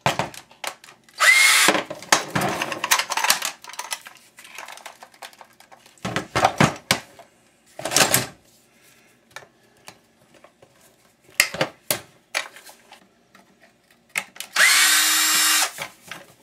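Power drill spinning up in two short runs, one about a second in and one near the end, each rising quickly in pitch and then holding steady while driving out screws on a house fan's motor. Between the runs come short knocks and clatter of metal parts being handled.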